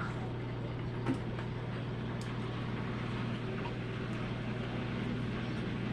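Steady low room hum, with one faint click about a second in.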